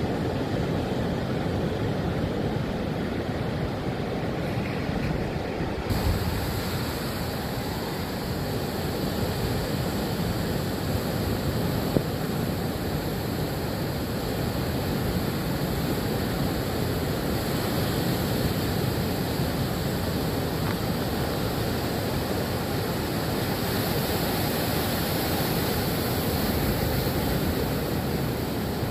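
Rough storm surf breaking and washing onto the shore, a steady rush of waves, with wind blowing across the microphone.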